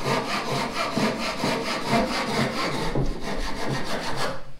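Hand saw cutting through the end of a wooden boat rail in quick, even back-and-forth strokes, trimming the excess flush at the transom; the sawing stops near the end.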